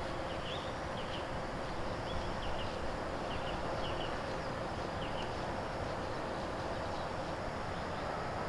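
Short, high bird chirps repeated every second or so over a steady background hiss.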